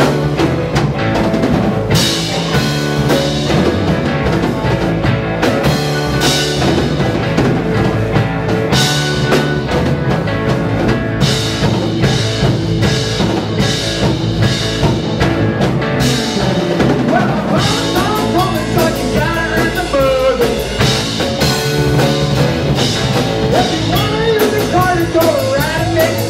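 Live rock band playing an instrumental stretch with drum kit, bass and electric guitar. From about two-thirds of the way through, a lead line with bending, wavering notes comes to the fore.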